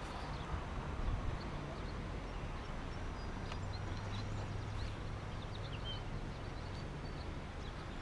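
Outdoor ambience: steady low wind rumble on the microphone, with faint, scattered short bird chirps.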